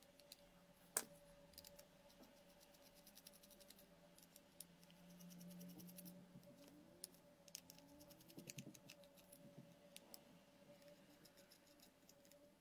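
Faint, scattered clicks and ticks of a micro screwdriver on the small screws and plastic case of an SJ4000 action camera, over near-silent room tone. One click about a second in stands out, and a quick run of clicks comes about two-thirds of the way through.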